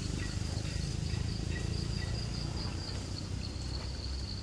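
Insects chirring in a steady, high-pitched, pulsing drone, with a low rumble underneath.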